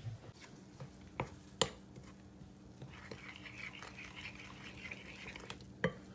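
A cooking utensil stirring food in a bowl or pan, with a few sharp clicks against the cookware. A soft hiss comes in about halfway through.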